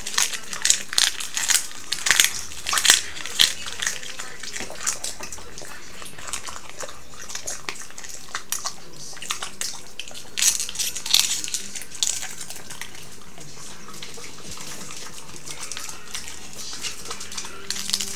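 French bulldog biting and chewing a raw cabbage leaf held out by hand: a run of crisp, crackling crunches, thickest in the first few seconds and again about ten seconds in, sparser in between.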